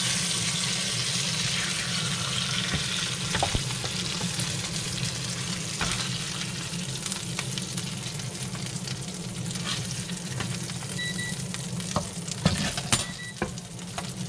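Blackened redfish fillets sizzling in oil in a nonstick skillet, with a plastic spatula clicking and scraping against the pan and plate as the pieces are lifted out. Near the end an air fryer beeps a few times, its signal that the food needs turning.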